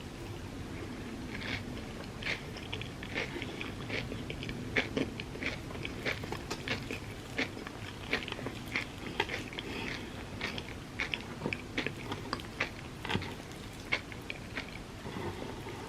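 A person chewing crepes filled with Dubai chocolate, with many small crunchy crackles from the toasted kataifi in the filling, starting about a second and a half in.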